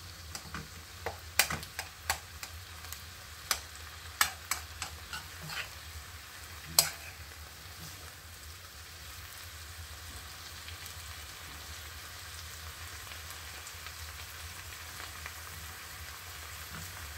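Chopped vegetables sizzling in a non-stick frying pan while a metal spoon stirs and scrapes them, with sharp clicks of the spoon against the pan for the first several seconds, the loudest about seven seconds in. After that there is only a steady sizzle.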